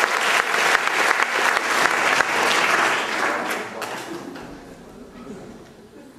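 Audience applauding, dense clapping that thins out and fades away over the second half.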